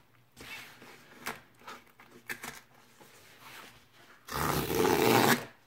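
A cardboard book mailer is handled with light rustles and taps. Then comes a loud tear lasting about a second near the end as the mailer's tear strip is ripped open.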